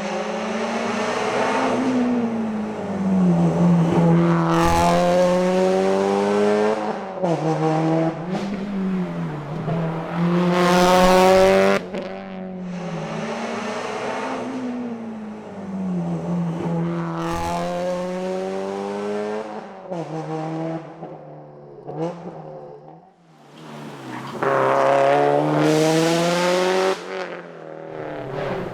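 Subaru WRX STI's turbocharged flat-four engine driven hard, the revs climbing again and again and dropping at each gear change or lift off the throttle. The engine goes briefly quiet about twelve seconds in and again for a longer lull about three-quarters of the way through, before pulling hard once more.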